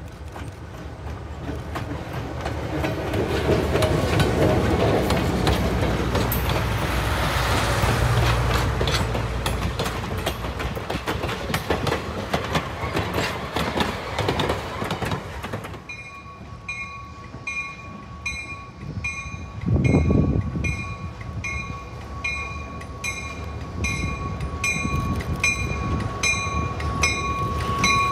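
Diesel locomotive passing close by, its engine and wheels on the rails swelling to a peak within a few seconds and then easing off. About halfway through, a bell starts ringing at a steady regular beat, with a brief low thump a few seconds later.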